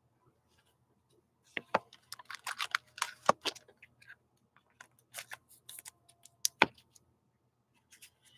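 A trading card being handled and slipped into a thick plastic toploader, then set down on the table: a run of sharp plastic clicks and taps with light rustling, starting about a second and a half in, with one louder tap later on.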